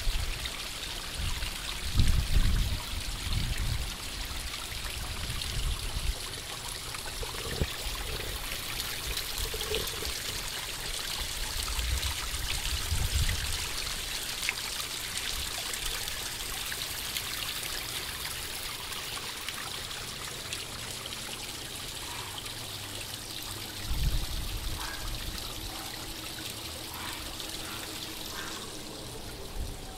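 Water trickling and splashing steadily as it spills over the rocks of a small garden pond waterfall and down a tiered stone fountain into the pond. A few brief low rumbles come through.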